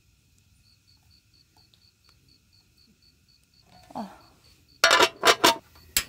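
Metal pot lid set onto a camp cooking pan, clattering in three quick ringing clangs about five seconds in and one more sharp clack near the end, after a short squeak. Faint crickets chirp steadily underneath.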